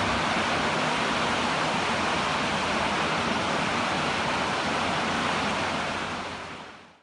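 Steady rushing noise with no distinct tone or rhythm, fading out over the last second or so.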